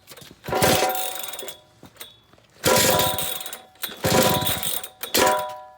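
Concrete saw dry-cutting a score line in a concrete slab, in four separate bursts of about a second or less, each a loud grinding whine that stops abruptly.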